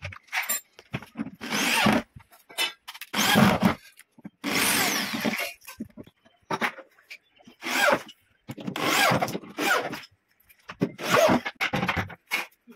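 Electric power drill with a screwdriver bit driving screws into a plywood cupboard, run in about eight short bursts with pauses between them.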